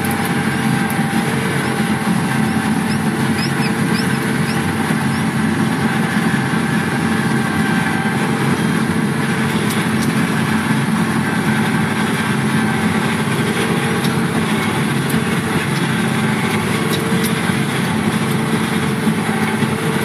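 John Deere 3520 sugar cane harvester running at work: a loud, steady machine drone with a constant higher whine over it, unchanging throughout.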